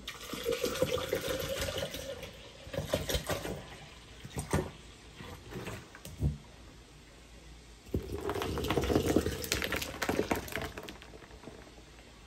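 Water poured from a jug into a pitcher of blended pineapple and ice, in two pours: a short one of about two seconds at the start and a longer one from about eight seconds in. A few short knocks come between the pours.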